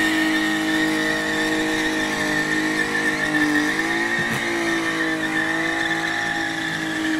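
Modified car's engine held at high, steady revs while its tyres spin and squeal, with a brief dip and recovery in engine pitch about four seconds in.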